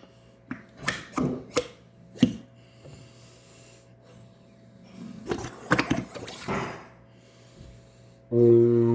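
Hand-played slime giving a handful of sharp clicking pops, then about five seconds in a denser run of squishy crackles. Music starts near the end.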